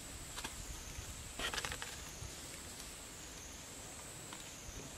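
Quiet outdoor ambience: a steady, slightly wavering high-pitched drone over a low rumble, with a short crackling rustle about a second and a half in.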